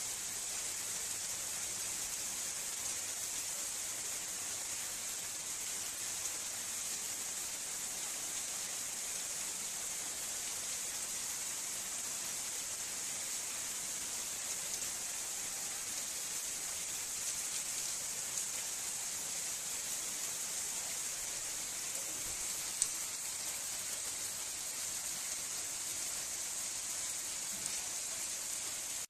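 Steady hiss of heavy rain falling onto a flooded paved lane, pattering into the sheet of running floodwater. A single sharp tick about three-quarters of the way through.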